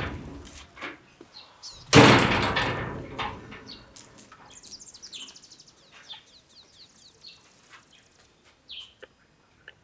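A loud, sudden crash about two seconds in that dies away over a second or so, followed by small birds chirping.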